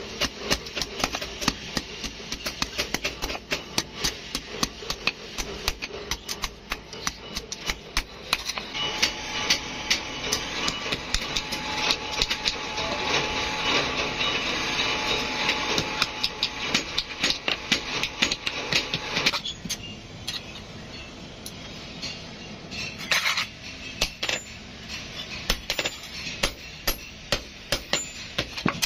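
Blacksmith's hammer striking a hot iron sickle blade on a steel anvil, many quick, irregular blows. From about a third of the way in, a steady hiss with a faint high whine runs under the blows and stops suddenly about two-thirds through.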